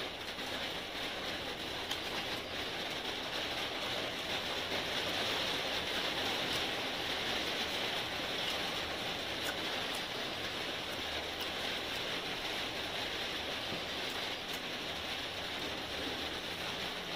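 A steady, even hiss under a few faint clicks of someone eating rice and curry by hand.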